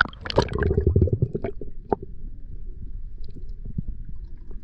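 Water splashing and gurgling as the microphone goes under the surface during the first second or so, then the muffled low rumble of sound heard underwater, with scattered faint clicks.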